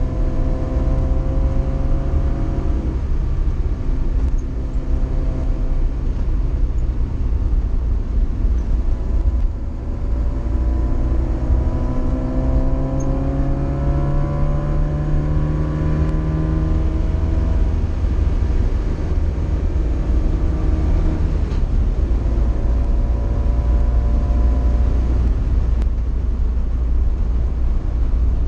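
A Fiat car's engine heard from inside the cabin as it drives up a hill road. The note climbs as the car accelerates and drops back at gear changes about four, ten and twenty-two seconds in, over steady low road noise.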